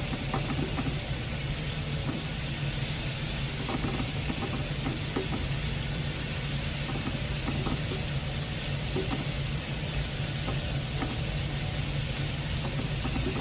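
Onion paste, black cumin and turmeric sizzling in oil in a nonstick frying pan, stirred and scraped now and then with a silicone spatula as the spices are fried down. A steady low hum runs underneath.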